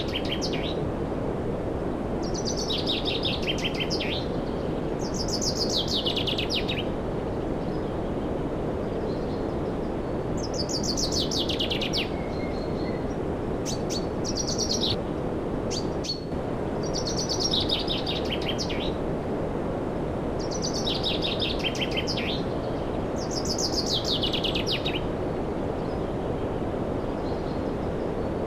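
A songbird repeating a fast trill that falls in pitch, each phrase about a second long, every few seconds, with one longer pause near the middle. Under it runs a steady rushing noise.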